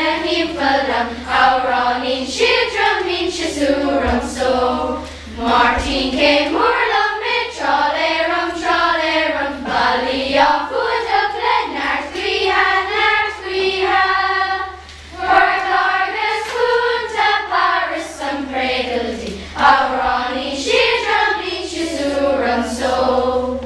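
Children's school choir of boys and girls singing a song together, in phrases with short breaths between them; the song ends just at the close.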